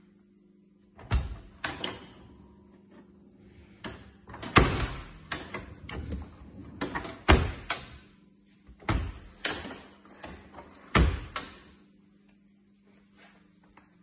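Kitchen island drawers being pushed open and shut: a run of sharp knocks and dull thuds, often two close together. The knocks come about a second in, from about four to eight seconds in, and again from about nine to eleven and a half seconds in.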